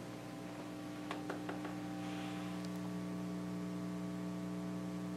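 Mains hum and a faint hiss from a phono preamp played through loudspeakers at maximum amplifier volume with no record playing: the residual noise floor of the phono stage. A few light clicks come about a second in.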